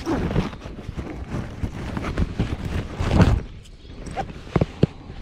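A hooked carp splashing and thrashing in shallow water, in irregular bursts with the biggest splash about three seconds in, and two sharp clicks near the end.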